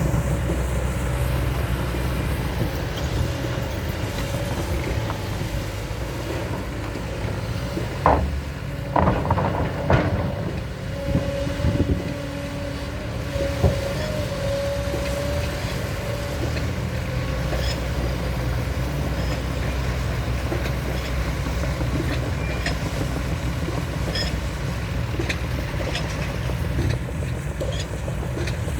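SANY SY200C excavator running steadily with a low diesel rumble. There are a few sharp clanks about eight to ten seconds in, then a steady whine for several seconds.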